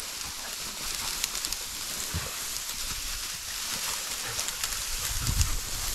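Tall dry prairie grass rustling and crackling as someone pushes through it, with a few dull footfall thuds near the end.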